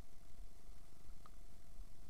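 Faint wind rumble on the microphone in an open flooded field, with a thin steady tone and a single brief chirp just past a second in.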